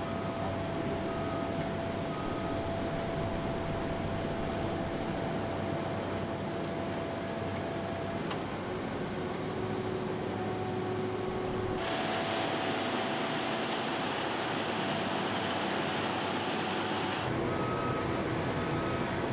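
Steady drone of heavy machinery and vehicles on a construction site, with a reversing alarm beeping a few times in the first two seconds and again near the end.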